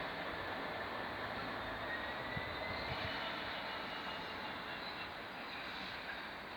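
A train running past on the line, a steady rumble with a faint high whine from the wheels on the rails, slowly fading toward the end.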